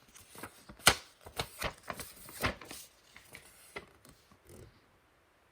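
Paper instructions being handled and turned over by hand: an irregular run of crinkles and light taps that stops about four and a half seconds in.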